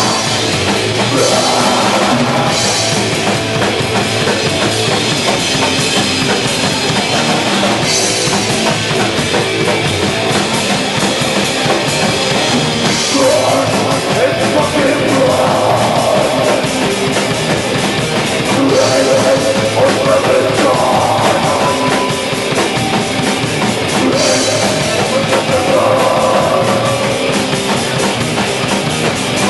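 Hardcore punk band playing a loud, fast song, with drum kit and crashing cymbals over guitars and bass.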